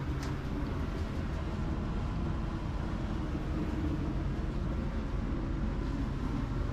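Steady low mechanical hum of rooftop machinery, with faint steady tones in it.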